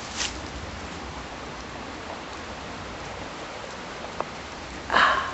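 Steady, even hiss of outdoor noise, with a single sharp click about four seconds in.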